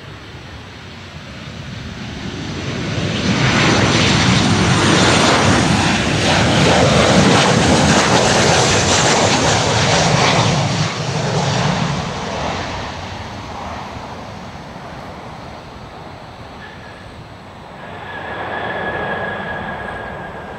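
Jet engines of a Boeing 737-800 (CFM56 turbofans) on landing approach: the roar grows as the airliner closes in, peaks as it passes low overhead, then fades. It swells again briefly near the end with a thin whine as the plane rolls out on the runway.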